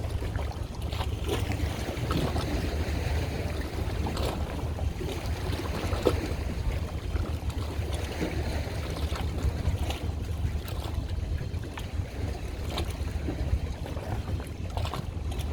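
Wind buffeting the microphone with a steady low rumble, over water splashing and lapping in irregular bursts.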